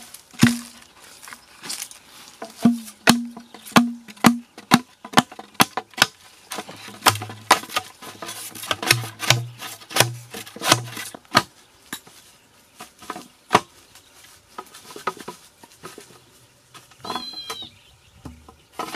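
A wooden pole rammed down inside an upright green bamboo tube, knocking out the node walls to open the bore of a bamboo cannon: a quick run of sharp, hollow knocks that ring in the tube. Partway through, the ringing note drops lower, and the knocks thin out near the end.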